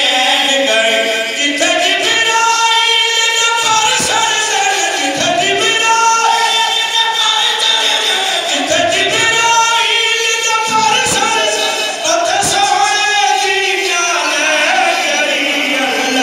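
A group of men singing a devotional Urdu qasida in chorus, led by one voice at a microphone, in rising and falling melodic phrases.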